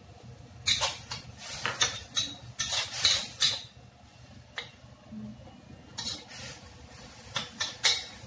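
Metal spatula scraping and knocking against a wok while stir-frying. The strokes come in two runs with a pause in the middle.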